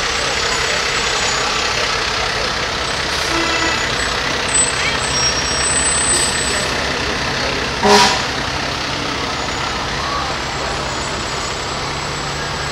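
Diesel fire trucks rolling slowly past, engines running steadily, as a tanker goes by and a rescue truck approaches. About eight seconds in comes a short, sharp blast, the loudest moment.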